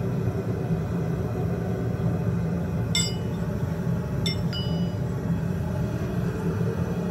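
Steady roar of a gas farrier's forge burner, with a few sharp metallic clinks that ring briefly, steel tools and horseshoe striking the anvil, about three and four seconds in.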